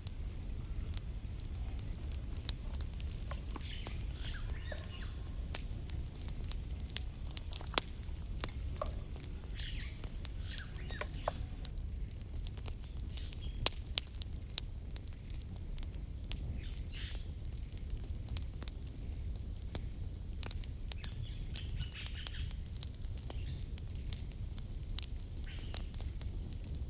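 Outdoor ambience: many scattered sharp clicks and pops over a steady low rumble, with short bird calls now and then.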